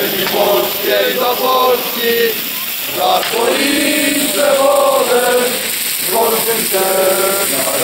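A large crowd chanting in unison, rhythmic phrases with some drawn-out syllables, over a steady high hiss.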